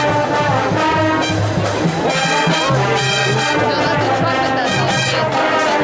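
Marching band playing brass-led music with drums, over a low bass line in short repeated notes.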